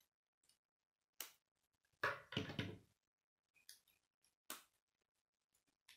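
K'nex plastic rods and connectors clicking and snapping as they are handled and pushed together by hand: a few separate clicks, with a quick run of clatter about two seconds in.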